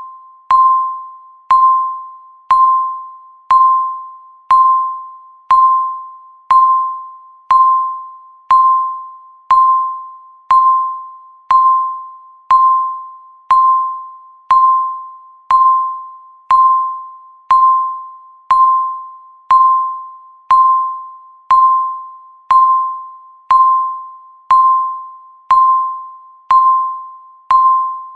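Countdown timer beeping once a second, counting down the seconds left: a single high electronic tone that starts sharply and fades away before the next one, repeating evenly.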